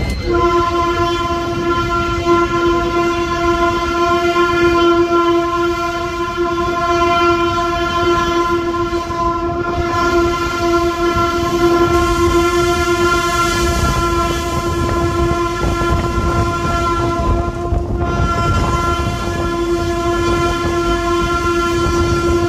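Horn of an EMD G22 diesel locomotive blowing one steady, unbroken note, over the low rumble of the engine and the train rolling slowly on the track.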